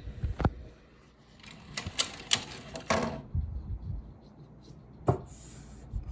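Technics SL-MC7 CD changer clicking and clattering: a few sharp clicks spread across several seconds, with a brief low rumble just after the middle, as its front-panel buttons are pressed and the disc-handling mechanism moves.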